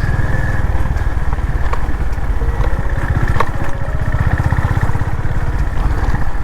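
Honda CB350RS's single-cylinder engine running at a steady speed, an even beat of exhaust pulses, with a few faint clicks over it.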